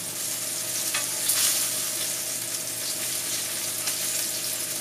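Flour-dusted beef short ribs searing in hot vegetable oil in a heavy-bottomed pan, sizzling steadily with occasional crackles.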